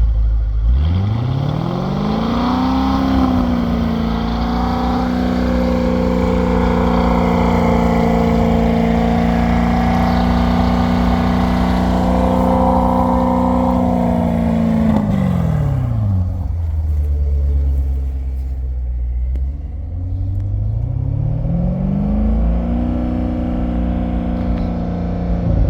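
Car engine and exhaust brought up from idle to steady raised revs, held there for about twelve seconds, then let back down to idle. Near the end it is revved up and held again before dropping back.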